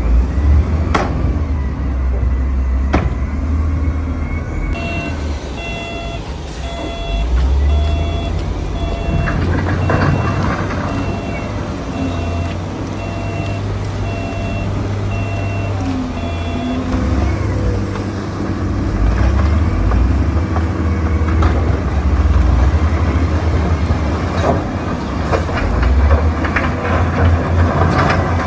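Shantui D31P bulldozer's diesel engine running with a strong low drone, with a few sharp metallic clanks near the start. From about five seconds in until about sixteen seconds in, a reversing alarm beeps over it in a steady series.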